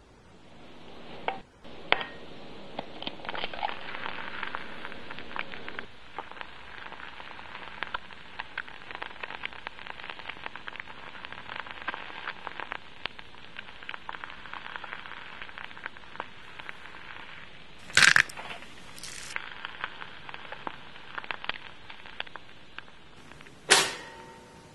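Egg frying in vegetable oil in a stainless-steel pan: steady sizzling full of small crackles and pops, building up in the first second. Two sharp cracks come a second or two in, a loud snap about eighteen seconds in, and a loud click near the end.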